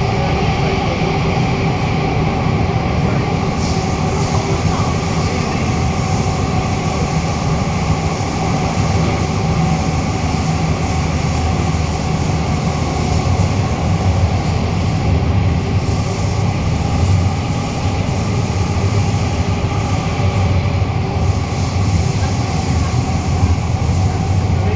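A Kawasaki–CRRC Sifang CT251 metro train running at speed through a tunnel, heard from inside the car: a loud, steady low rumble of wheels on rail with a few steady tones over it. Flat spots on the next car's wheels add to the running noise.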